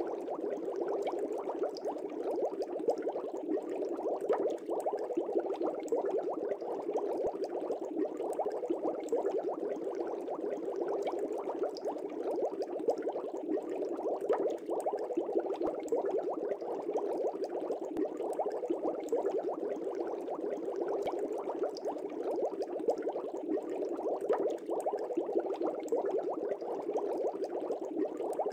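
Steady water bubbling, as in an aquarium tank: a continuous dense fizz of small bubbles with no change in level.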